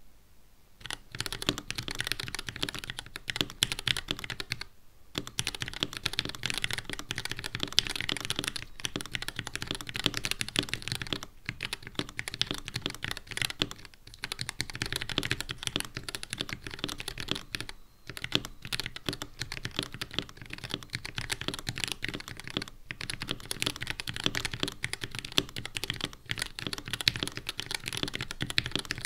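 Fast typing on a 60% mechanical keyboard with Gateron Red linear switches, lubed with Krytox 103 and fitted with 62g springs, under Cherry-profile PBT keycaps in a CNC aluminium case. It is a dense run of keystroke clacks that starts about a second in and breaks off for a moment now and then between bursts of words.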